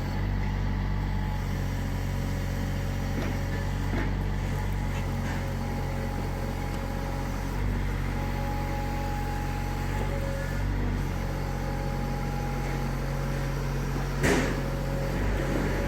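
Mini excavator's diesel engine running steadily, with a hydraulic whine that rises and fades as it works. A single sharp clank about fourteen seconds in.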